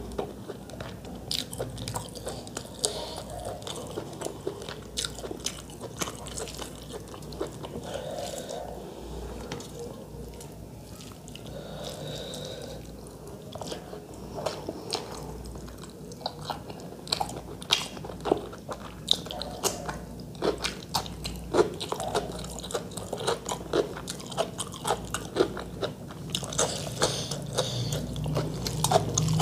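Close-miked chewing and wet mouth clicks of someone eating rice with chicken curry, along with fingers squishing and mixing the rice and curry on a metal plate. The clicks come several times a second and grow louder near the end.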